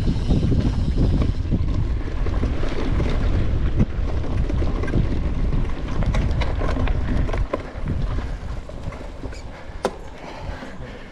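Mountain bike ridden at speed down a trail, heard from its handlebars: heavy wind buffeting and tyre rumble with the bike rattling. After about seven and a half seconds it eases into lighter trail noise with a few sharp clicks and knocks.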